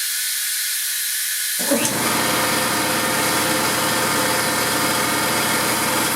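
Compressed air hissing out of the air compressor. About a second and a half in, the compressor's electric motor and pump kick on and run steadily: the pressure switch cutting in at its low set point of about 85 psi.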